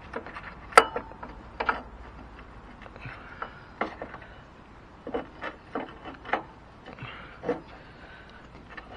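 Scattered metal clicks and knocks as steel shims and the toothed steering gear of a Case Ingersoll garden tractor are handled and fitted onto the steering shaft by hand, the sharpest click about a second in.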